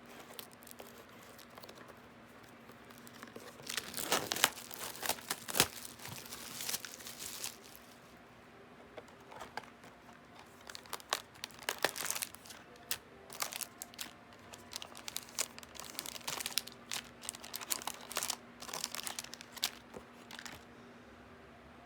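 Plastic wrapping crinkling and tearing as a trading-card booster box is unwrapped and opened, in two spells of crackling with a lull between, stopping shortly before the end.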